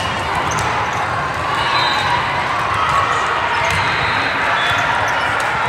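Volleyball rally on an indoor court: the ball struck several times, sharp slaps over a steady din of crowd and court noise in a large hall.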